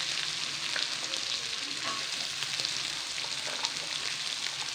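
Chopped onions sizzling steadily in hot oil in an aluminium kadai, with a few faint clicks of a metal slotted spatula against the pan.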